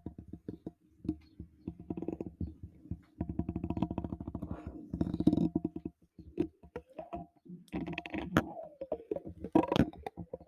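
Scratching directly on a microphone: rapid runs of rough, scratchy strokes in bursts with short pauses between them.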